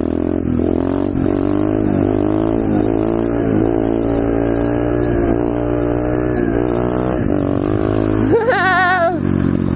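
A 125cc pit bike's engine running under throttle during a wheelie, its pitch rising and falling with the throttle. Near the end a short warbling, wavering tone cuts in for under a second.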